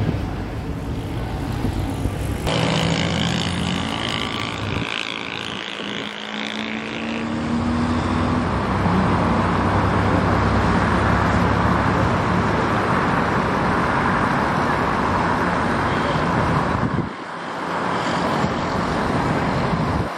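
Jet engine noise from an Airbus A321neo climbing away after takeoff: a loud, steady rushing noise with a deep rumble, and a low hum rising in pitch in the first few seconds. The sound changes abruptly a few times where shots are cut together.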